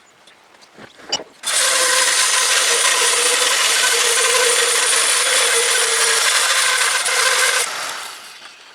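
Homemade electric horizontal bandsaw mill running: a loud, steady mechanical noise with a few held tones starts abruptly about a second and a half in, holds for about six seconds, then fades away. A couple of sharp clicks come just before it starts.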